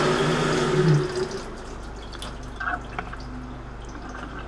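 Geared-head metal lathe running, then winding down and stopping about a second in. Afterwards coolant trickles and drips, with a few small clicks.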